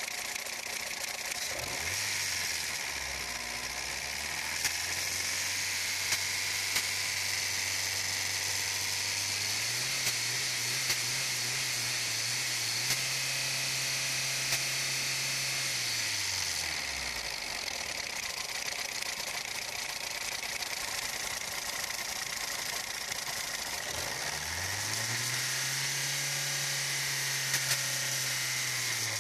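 Ford 1.3 four-cylinder engine idling in neutral, heard close up in the open engine bay, with a steady hiss and a few light clicks. A low hum swells and fades twice.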